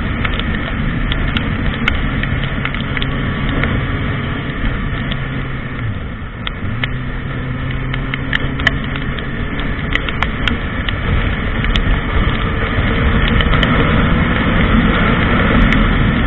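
Honda CBR1000RR's inline-four engine running at highway speed under heavy wind rush. Its note drops about six seconds in and climbs back half a second later. A few sharp clicks are scattered through it.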